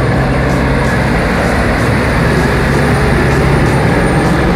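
Diesel engine of a Kenworth tractor-trailer pulling uphill as it passes close by, a steady heavy drone with a thin high whine that fades about four seconds in.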